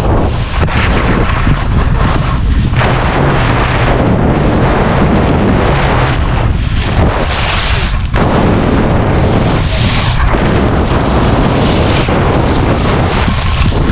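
Wind buffeting a moving camera's microphone while skiing down a piste, a loud steady rumble, with the hiss of skis scraping over firm snow rising and falling with each turn.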